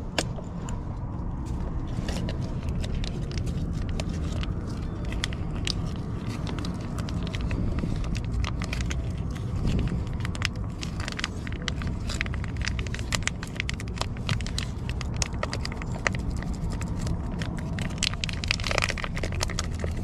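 Foil pet-food pouch crinkling and crackling as it is squeezed out into a steel dog bowl, many small clicks one after another, over a steady low rumble.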